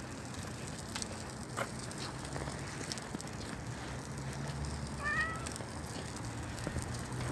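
A black cat gives one short, high meow about five seconds in, over a steady low hum, with a few sharp clicks earlier on.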